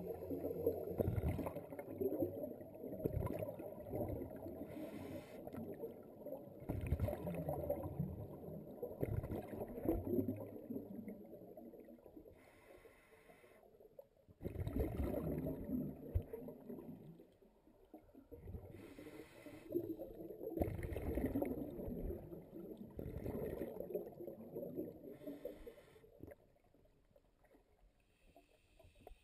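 Scuba breathing heard underwater: the exhaled bubbles from a regulator rumble and gurgle in bursts a few seconds long, with quieter gaps between breaths.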